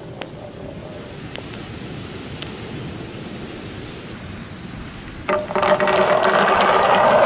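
Wind and surf hiss with a few faint ticks; about five seconds in, a handful of coloured balls drops into a plastic rain gutter and rolls down it, a sudden loud rumble with many small clicks and a steady ringing hum from the gutter.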